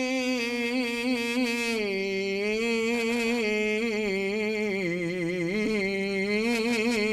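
A man's solo voice singing one long, ornamented melismatic phrase of an Islamic ibtihal (devotional supplication chant), unaccompanied. The held note winds up and down in small turns and steps down in pitch about two seconds in.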